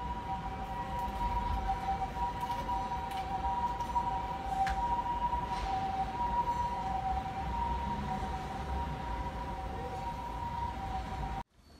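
Two-tone emergency vehicle siren sounding steadily across the city over a low background rumble.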